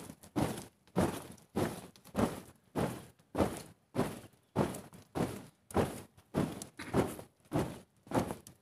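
A flag-raising troop marching in step, their shoes stamping in unison on packed dirt at a steady beat of a little over two steps a second.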